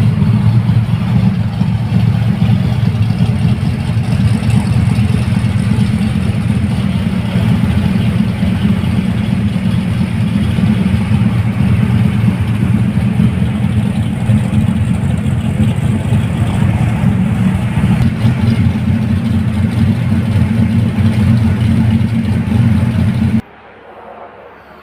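Holden 355-cubic-inch stroker V8 in a 1990 VN Commodore SS running steadily after start-up, a loud even engine note that cuts off suddenly near the end.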